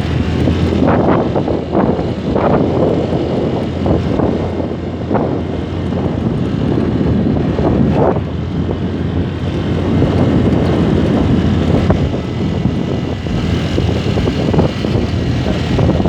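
Riding noise from a Honda Vario 150 scooter on the move: wind buffeting the microphone in uneven gusts over a steady low engine and road rumble.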